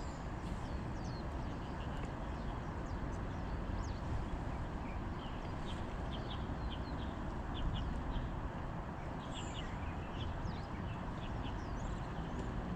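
Small birds chirping: many short, high calls scattered through, over a steady background rush of noise.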